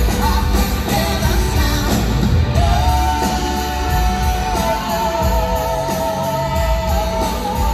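Live pop-rock band playing full volume with electric guitar and drums while a man and a woman sing together; about a third of the way in they hold two long notes in harmony, one with a wavering vibrato, until shortly before the end.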